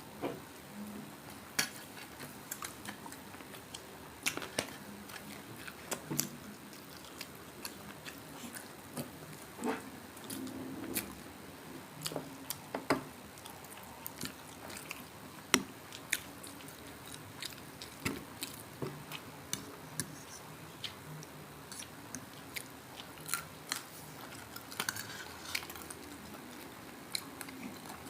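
Chewing and biting into crispy fried pork belly, with irregular sharp crunches and clicks throughout.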